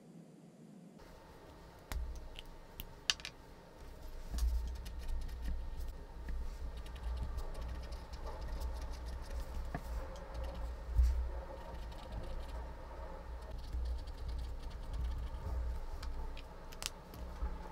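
A pen writing on a page of a spiral-bound notebook lying on a table, starting about a second in: small scratches and ticks of the nib on paper, with low bumps from the hand and notebook against the tabletop.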